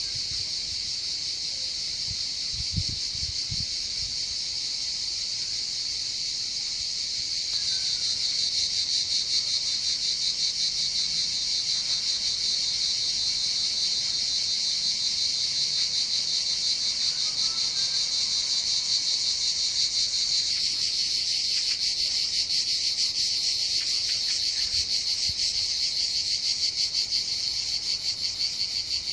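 A chorus of cicadas singing in the trees: a steady, high-pitched buzzing made of fast pulses, which grows louder about eight seconds in. A brief low thump comes about three seconds in.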